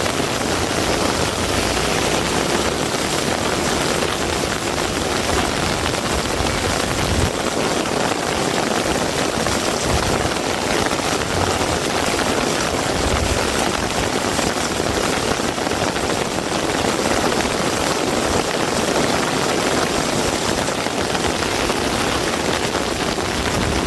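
Heavy rain falling steadily, a dense even hiss with a few brief low rumbles in the middle.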